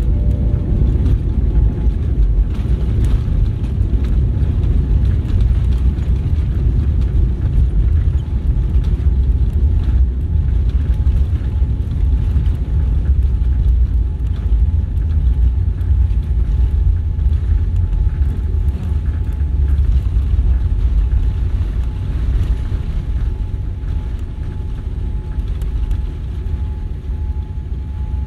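Jet airliner's landing roll heard from the cabin: a loud, steady low rumble of engines and wheels on the runway, easing slightly near the end as the plane slows.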